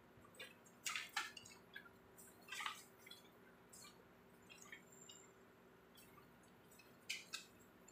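Near silence in a quiet room with a faint steady hum, broken by scattered faint clicks and taps, the sharpest about a second in and again near the end.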